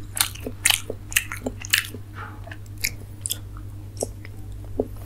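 Close-up chewing and wet lip smacks of a person eating steamed chicken momos: short sharp mouth clicks, several a second, at an irregular pace, over a steady low hum.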